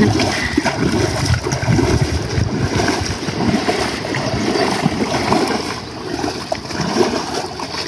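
Fast, continuous splashing and churning of water as a narrow wooden canoe is hand-paddled with a rubber sandal in each hand, stroking quickly on both sides.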